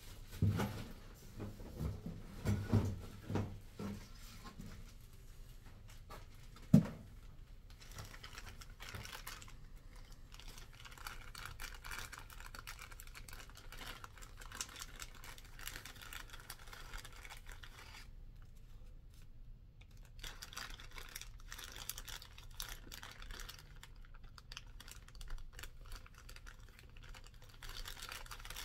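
Small clear plastic parts bag crinkling and rustling in the hands as it is opened and parts are taken out, after a few handling thumps and one sharp knock about seven seconds in.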